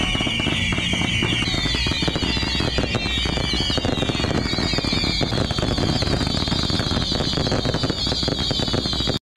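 Ground-launched fireworks barrage firing: dense, rapid crackling with several wavering high whistles at once, the whistles moving higher about one and a half seconds in. The sound cuts off abruptly just before the end.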